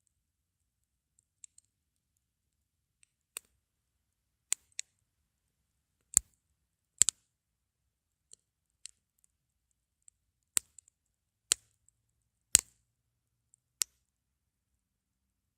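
Wood fire in a Coleman ball grill crackling: irregular single sharp pops a second or so apart, a few of them much louder, with almost nothing heard between.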